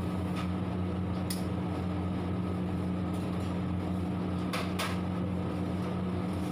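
A steady low machine hum with a few short, sharp clicks, one about a second in and two close together about four and a half seconds in.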